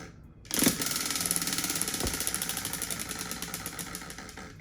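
Spinning prize wheel clicking rapidly as its pointer ticks past the pegs, starting about half a second in and gradually getting quieter as the wheel winds down.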